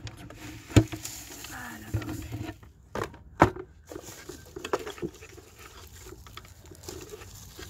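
Hands rustling and pressing dry leaves, moss and soil in a small terrarium, with three sharp knocks, about one, three and three and a half seconds in.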